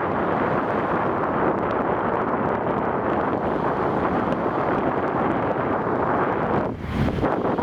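Fireworks display: a steady, continuous rumble of bursts with no single shot standing out, mixed with wind on the microphone.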